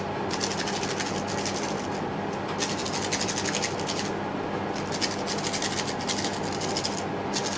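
Rapid rasping scrape of a wire-handled enamel sifter being worked to shake white vitreous enamel powder through its mesh, with short breaks about four seconds in and near the end.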